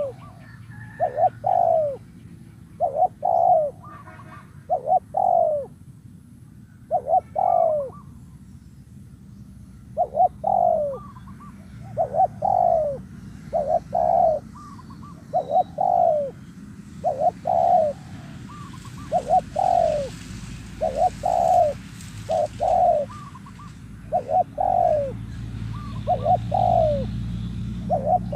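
Spotted dove cooing: short, low, mellow coo notes repeated in phrases over and over, with brief pauses between phrases. It is the dove call used to rouse a decoy dove into calling.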